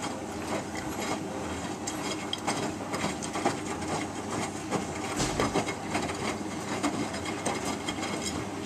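Miele Distinction 3000 front-loading washing machine tumbling a small cottons load on its main wash: the drum turns steadily while the wet laundry drops and knocks irregularly inside it, with a heavier thump a little past five seconds in.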